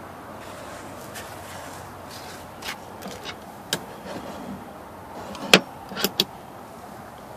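A gloved hand tapping and pressing on a car's rear wheel-arch trim and fuel filler door: a few light clicks and taps, the loudest about five and a half seconds in and two quicker ones just after, over a steady outdoor hiss.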